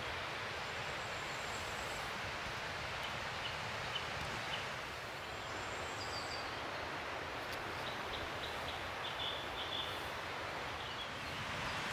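Outdoor forest ambience: a steady rushing background with faint, short bird chirps now and then.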